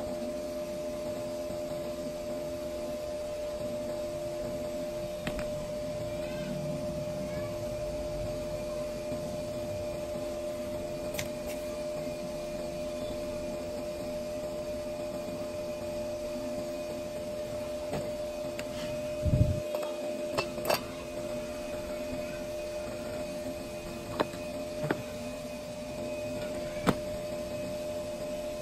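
Steady whirring hum of a small electric motor or fan. Over it come a few sharp clicks and one low thump from handling tools and the circuit board, the loudest bunched about two-thirds of the way through.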